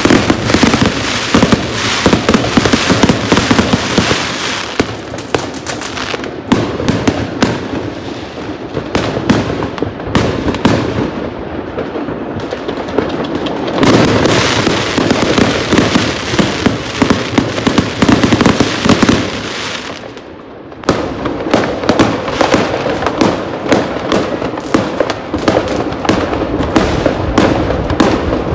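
Fireworks going off in a dense, continuous barrage of bangs and crackling, many overlapping. The barrage eases off briefly about twenty seconds in, then picks up again.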